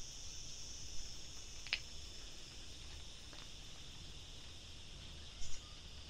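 Crickets chirping in a steady, high continuous trill, with a couple of faint clicks and a short high chirp about five and a half seconds in.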